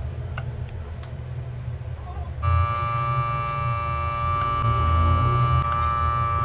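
A steady electronic tone starts about two and a half seconds in and holds unchanged, over a low hum, with a few light clicks before it.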